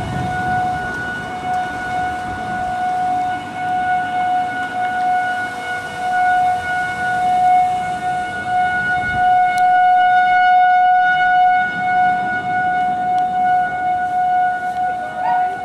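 A siren holding one steady, unbroken tone, swelling and fading somewhat in loudness, with a single sharp click about halfway through.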